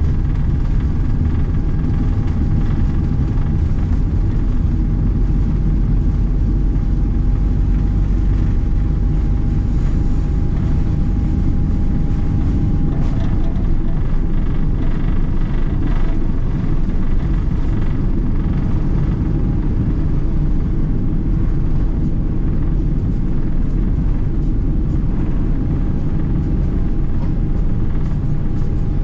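Boeing 777-300ER cabin noise during the takeoff roll and lift-off: the GE90-115B engines at takeoff thrust give a loud, steady deep rumble with a steady whine above it.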